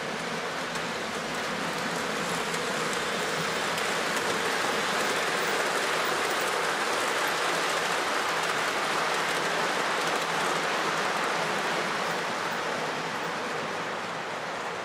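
O-gauge three-rail model freight train of lumber-loaded flatcars rolling past: a steady rumble and hiss from the wheels on the metal track, swelling as the cars pass close by and easing off near the end.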